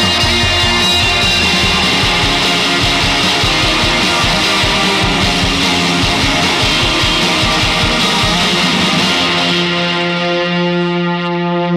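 Electric guitar played through a germanium fuzz pedal: a distorted rock riff that settles, near the end, into one held note ringing out.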